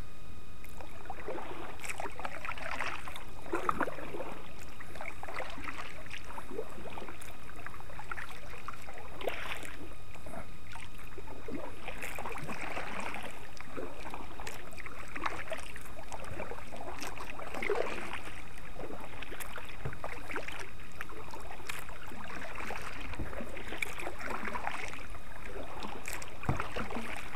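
Kayak paddle strokes dipping and splashing in river water beside a small Sun Dolphin sit-on kayak, the splashes coming roughly a second apart in an uneven rhythm.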